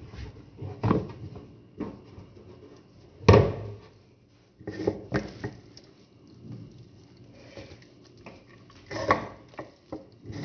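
Hands handling and stuffing a raw whole chicken on a plate, with irregular knocks and thumps as the plate shifts against the wooden table. The loudest knocks come about three seconds in and again near the end.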